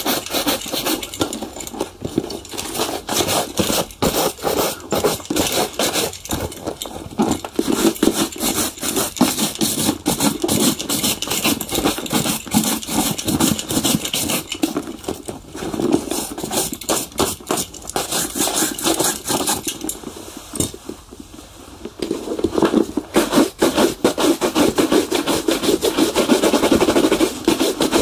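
Shoe polishing: rapid brushing and rubbing strokes on a shoe, a dense run of short scrapes. It eases off briefly about three-quarters of the way through, then picks up again louder and steadier.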